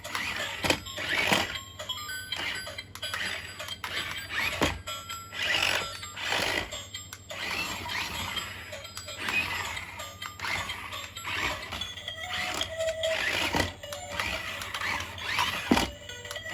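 Background music mixed with repeated clicks and short bursts of mechanical whirring.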